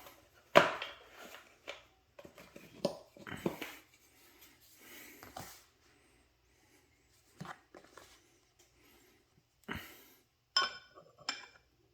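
Metal positioning squares being handled, set down and butted against each other: irregular knocks and clinks, with a short metallic ring near the end.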